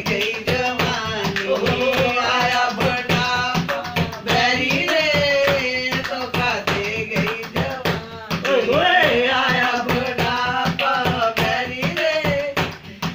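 Hindi folk song: a high voice singing a melody over a steady, quick percussion beat.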